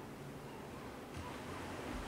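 Mediterranean surf washing ashore as a soft, steady hiss, growing a little louder just past a second in.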